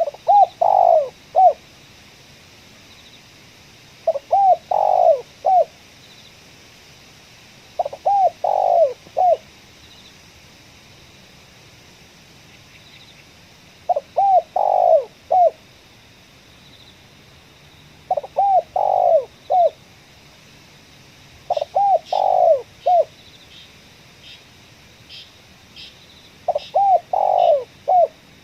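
Spotted dove cooing: seven phrases of three or four coo notes each, one phrase about every four seconds. Faint, short high ticks sound in the background during the last few seconds.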